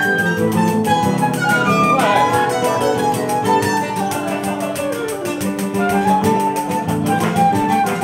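Choro ensemble playing: a transverse flute carries the melody over plucked acoustic guitar, with a pandeiro's jingles keeping a steady, fast rhythm.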